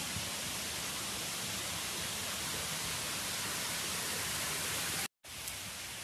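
Steady rushing hiss of falling water from a waterfall. About five seconds in it cuts out completely for a moment, then comes back slightly quieter.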